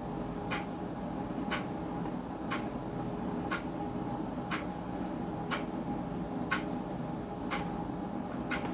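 Clock ticking steadily, one tick a second, over a low steady hum.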